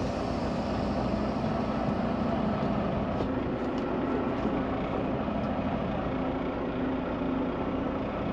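Volvo semi-truck's diesel engine running steadily at low revs, heard from inside the cab as the truck moves slowly, with a few faint ticks about three to four seconds in.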